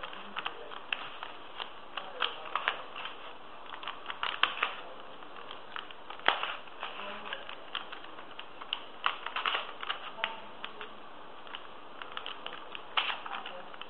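3x3 Rubik's Cube being turned, its plastic layers clicking and clacking in irregular runs of quick clicks, with one sharper click about six seconds in.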